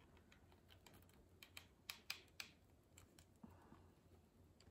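Faint, irregular small clicks and taps of fingers pressing and handling glued paper petals on a card; otherwise near silence.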